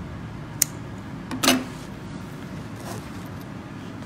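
A sharp small click about half a second in and a louder knock with a short rustle about a second and a half in, from small sewing scissors and notions being handled on a cutting mat, over a steady low room hum.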